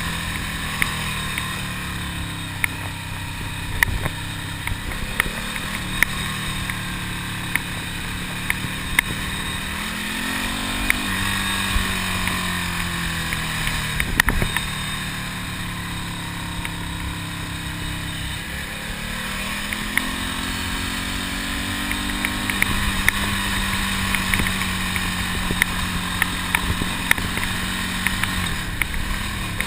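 Ducati Monster's air-cooled L-twin engine pulling the motorcycle along at riding speed, with wind and road noise. The engine note rises and falls a few times as the rider accelerates and shifts, and sharp knocks and clicks are scattered throughout.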